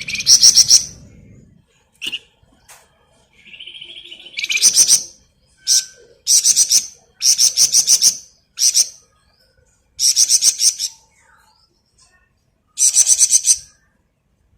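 A flamboyan, a songbird kept in Indonesian bird-keeping, singing loud, high, rapid rattling trills. There are about eight bursts of under a second each, separated by short pauses and a few single short notes.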